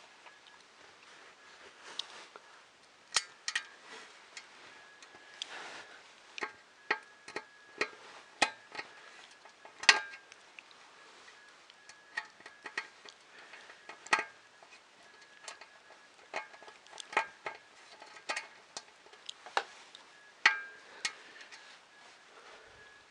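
Irregular clicks and taps of small bolts, nuts and parts being handled and fitted while a 3D printer kit's X-axis is assembled. Two louder knocks come about ten and twenty seconds in.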